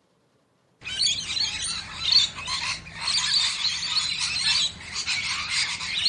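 A flock of rainbow lorikeets chattering and screeching, many high calls overlapping into one dense racket that starts suddenly about a second in.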